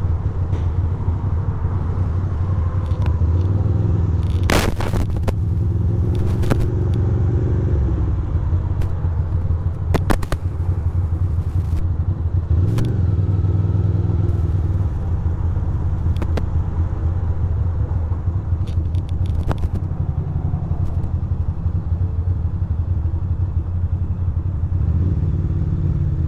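2006 Ducati Monster 620's air-cooled L-twin engine running steadily at low speed in slow traffic, with a brief rise in revs about halfway through. Several sharp clicks or knocks sound over it, loudest about 4 and 10 seconds in.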